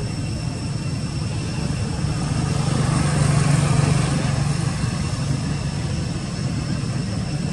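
Low engine rumble of a passing motor vehicle, growing louder near the middle and then fading.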